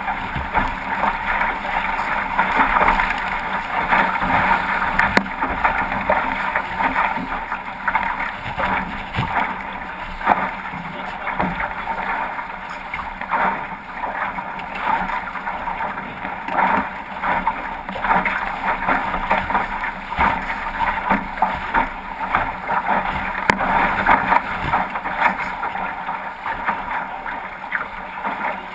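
A 505 racing dinghy sailing through chop: a steady rush of water along the hull, with frequent slaps and knocks as the hull meets the waves.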